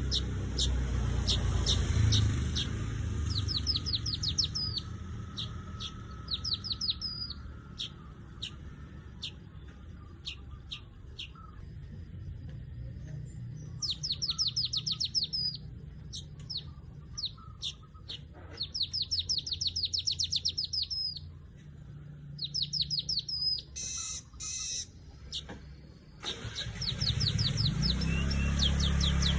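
Golden-headed weaver (manyar kepala emas) calling: rapid runs of sharp, high chirps, 'cret-cret', coming in several bursts of a second or two with gaps between them.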